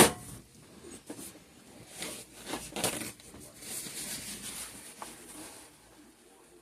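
A sharp knock at the start, then scattered light clicks and scraping as soap-making containers and utensils are handled on the work surface.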